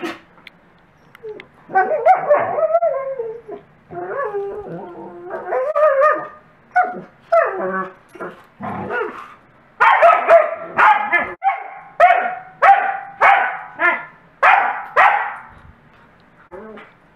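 Wolfdogs and a Great Pyrenees mix vocalizing in rowdy play. For several seconds there are wavering, pitch-bending whines and howl-like 'talking' calls, then a quick, even run of about nine short, loud barks, a little over one a second, with a couple of faint yips near the end.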